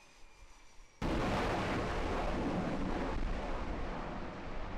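A faint jet whine falling slightly in pitch, then about a second in a sudden loud roar of an F/A-18 fighter's jet engines at full power as it is catapulted off the carrier deck, easing off slowly as the jet climbs away.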